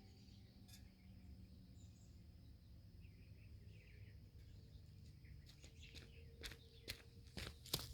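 Near silence of faint outdoor ambience: a low rumble with a few faint bird chirps. A run of sharp clicks and taps comes in the last couple of seconds.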